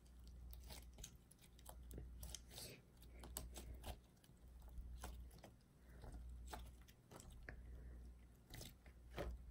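Faint sticky clicks and pops of pink slime being stretched and squeezed in the hands, over a low steady hum.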